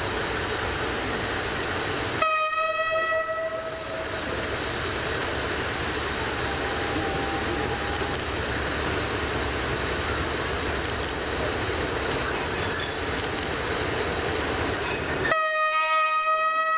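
CFL 1604, a bulldog-nose diesel-electric locomotive with a two-stroke GM-EMD V16 engine, running steadily as it approaches. It sounds a one-note horn for about two seconds, starting about two seconds in, and blows it again near the end.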